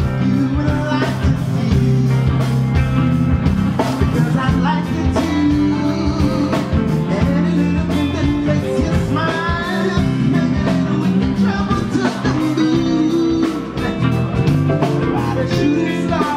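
Live band playing a groove: electric guitar, keyboard and drums, with a male lead vocal over it.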